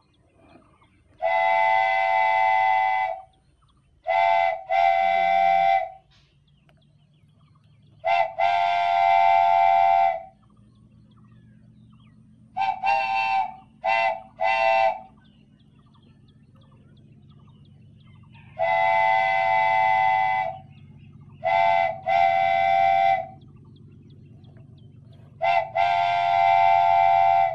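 Train horn sounding in a pattern of long and short blasts: one long, two short, one long, three short, one long, two short, then a last long blast. A faint low rumble runs under the gaps.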